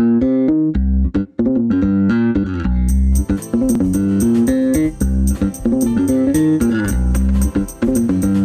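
Background music: a plucked melody stepping over a pulsing bass line. About three seconds in, a steady beat of quick high ticks comes in.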